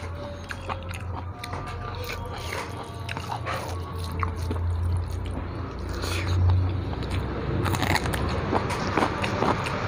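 Close-up eating sounds: chewing and crunching, with a crisp bite into a raw carrot near the end. Fingers mix rice on a steel plate.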